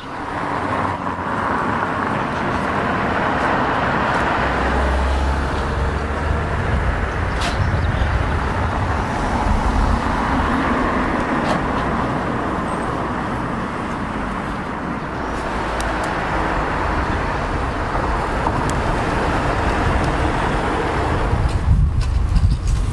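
Steady rushing noise and low rumble of a vehicle in motion, coming in suddenly, with the deeper rumble growing stronger after a few seconds.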